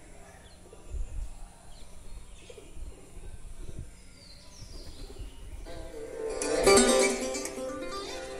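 Faint outdoor background with a few bird chirps and a low rumble, then about six seconds in the recorded song's instrumental introduction starts loudly on a plucked string instrument.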